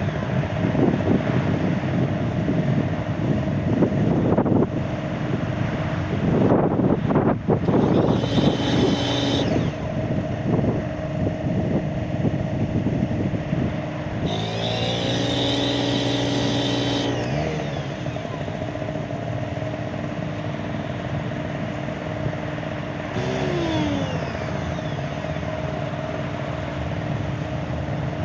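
Small portable generator running steadily. There are louder noisy stretches in the first ten seconds, and a second machine hum joins for a few seconds about halfway through.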